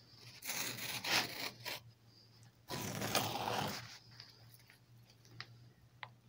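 Leather strip being drawn through the blade of a hand-held adjustable lace cutter, a rasping scrape in two pulls of about a second each, followed by a few light ticks.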